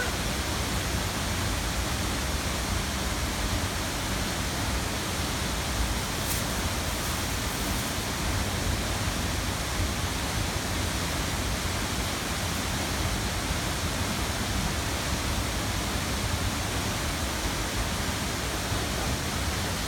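Waterfall rushing: a steady, even noise that does not change.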